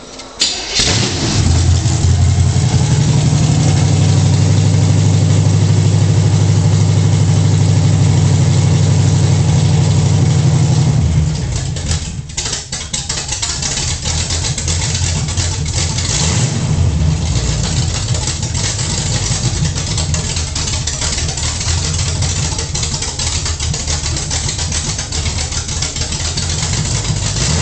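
Chevy 350 small-block V8 starting and running on open headers with the exhaust pipes unhooked. It catches right at the start and runs loud and even, then after about eleven seconds settles to a rougher, uneven idle.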